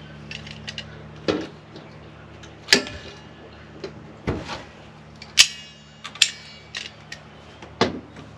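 Pliers working small finish nails out of an old wooden window sash: irregular sharp metallic clicks and taps about a second apart, a few ringing briefly.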